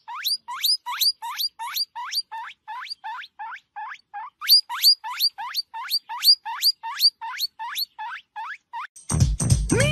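Small animal squeaking: a steady run of short, rising squeals, about three a second. About nine seconds in, music and a voice cut in.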